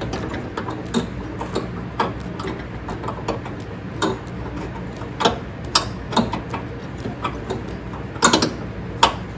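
Irregular light metal clicks and taps as a steel pin is worked into the mower deck's mounting linkage on a John Deere 110 lawn tractor, with a louder cluster of clanks near the end.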